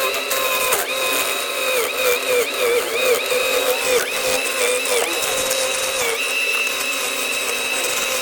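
CNC machine running, its motors giving a high whine of several tones that dip and shift in pitch every half second or so as it moves, then hold steady for the last couple of seconds.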